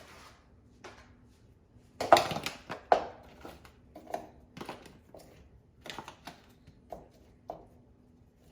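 Frozen meatballs being dropped one at a time into a pan of butter and oil: a string of separate knocks and clatters, the loudest about two and three seconds in.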